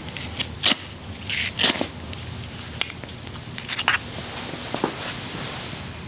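Ferro rod scraped hard with its striker several times in quick succession, sharp rasping strikes throwing sparks to light the denatured alcohol in an alcohol stove; a click and a few more short scrapes follow a couple of seconds later.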